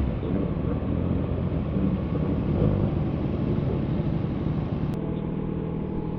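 A CFMOTO 675SR-R's inline-three motorcycle engine running at low revs, settling into a steady idle about five seconds in.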